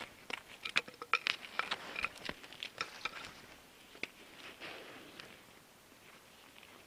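Close-up handling noise: irregular crunches and clicks, thickest in the first three seconds, then thinning to a few scattered clicks.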